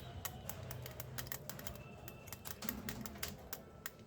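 Rapid, irregular light clicking and scratching of a small tool working on a laptop's USB port, scraping carbon deposits off the contacts.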